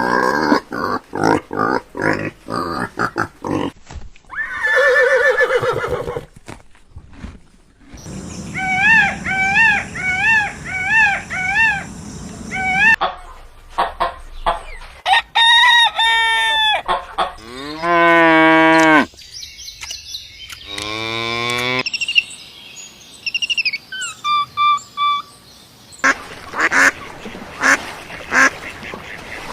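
A string of different animal calls, cut together and changing every few seconds, mostly bird-like honks and cries. About a third of the way in comes a run of evenly repeated calls, about two a second.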